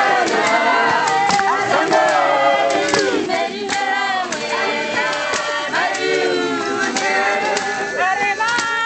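Background music: a group of voices singing together, with frequent sharp percussive hits.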